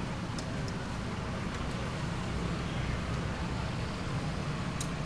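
Steady low rumble of street background noise, like traffic near a roadside food stall, with a few faint light clicks.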